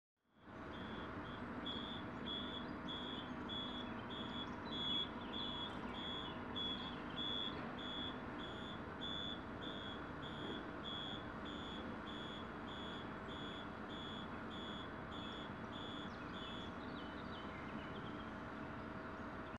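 Automatic bollard's warning buzzer beeping, a little under two beeps a second, over a steady mechanical hum; the beeping stops near the end while the hum carries on.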